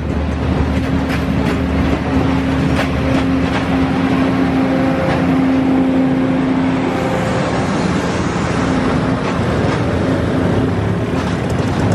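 Railway passenger coaches rolling past on the rails, wheels clicking over rail joints and points, with a held low hum for a few seconds in the middle; the rolling noise goes on steadily as the end of the train passes.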